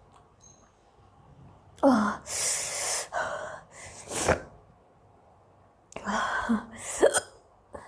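A woman sneezing after eating hot green chilli. A sharp voiced in-breath about two seconds in is followed by a loud sneeze and a few shorter bursts, and there is a second bout of sneezing about six seconds in.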